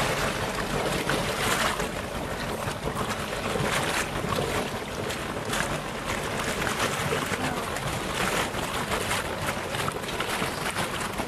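Outdoor noise on a small boat: wind buffeting the microphone in uneven gusts over a steady low rumble of the boat.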